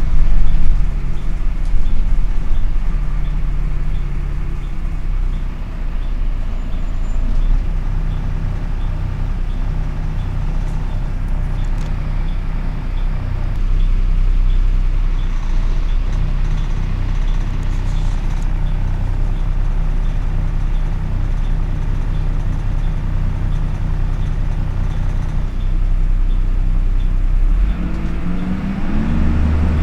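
Dennis Dart SLF bus engine idling with its radiator cooling fan running hard, a steady low hum under a broad rushing noise. Near the end the engine note climbs steadily as the revs rise.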